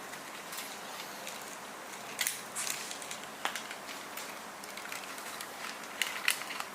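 Scattered light clicks and rustles of hands working with wires and small hand tools, with a few sharper clicks about two seconds in and a cluster near the end.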